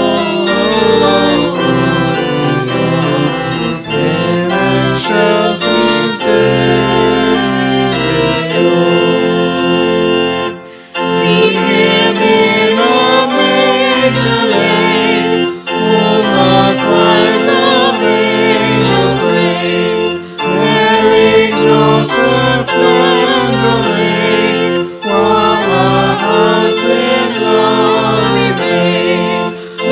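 Organ music: sustained chords played in phrases, with short pauses between phrases.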